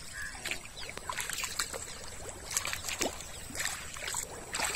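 Bare feet wading through shallow river water and soft mud: irregular splashing, sloshing steps.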